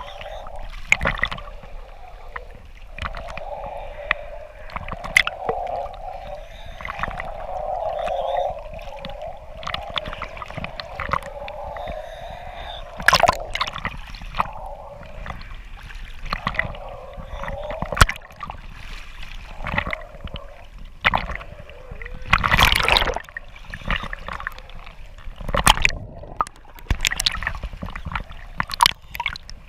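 Choppy sea water sloshing and gurgling around a camera bobbing at the waterline, muffled whenever it dips under, with sudden splashes as waves slap over it, several of them sharp and loud later on.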